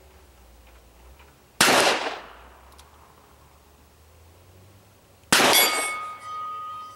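Two shots from a Smith & Wesson Model 10 revolver in .38 Special, fired single action about four seconds apart. The second shot is followed by the ringing of a struck steel plate target, which fades out over about a second and a half.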